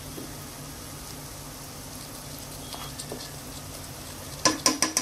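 Sliced onions sizzling gently in hot oil in a pressure cooker as ginger-garlic paste is added. Near the end comes a quick run of sharp clicks and scrapes as a spoon works the paste into the pot.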